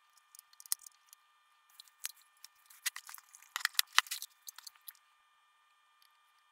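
Clicks and light knocks of a Technics SU-8055 amplifier's open metal chassis being handled and turned over on a workbench, with a quick cluster of louder knocks about three and a half to four seconds in.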